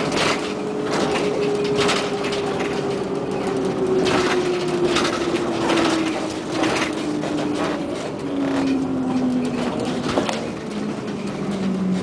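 Ride inside a Scania CN113ALB articulated city bus: a drivetrain whine falls slowly and steadily in pitch over the rumble of the moving bus. Frequent short rattles and knocks come from the body and fittings.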